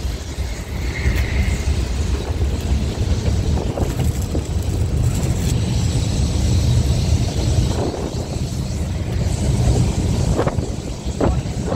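Low, steady rumble of an open-top Blackpool boat tram running along the track, with wind buffeting the microphone. A couple of short knocks come near the end.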